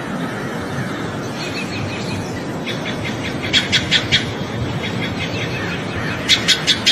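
Small songbird chirping in quick runs of about five short high notes, twice, over a steady rushing background noise.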